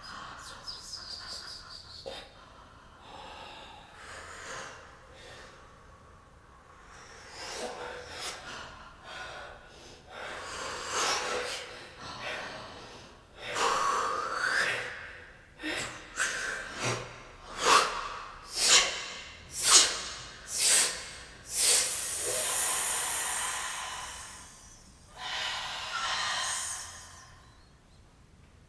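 A woman making loud, rasping breath sounds as a vocal performance: soft, uneven breathing at first, then a run of sharp gasps about one a second, followed by a long hissing breath of about two seconds.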